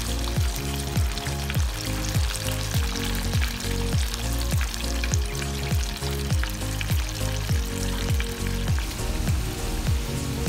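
Breaded chicken deep-frying in a pot of hot oil, a steady crackling sizzle. Background music with a steady beat of about two drum hits a second plays over it.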